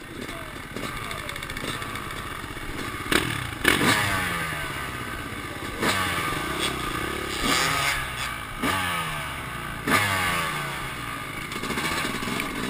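Dirt bike engine idling, blipped about five times, each rev jumping up sharply and falling back to idle.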